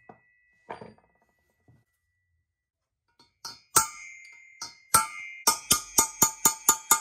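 Small hammer striking a punch to drive tight tapered aluminium bungs into the oilway drillings of an aluminium cylinder head, each blow sharp with a metallic ring. A few light taps in the first second, then from about four seconds in the blows come faster, about four a second near the end.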